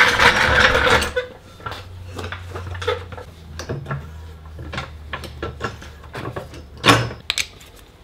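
Hydraulic floor jack being pumped to raise the front of a golf cart: a run of light mechanical clicks and creaks from the jack's handle and pump. A loud rushing noise fills about the first second, and a single louder knock comes near the end.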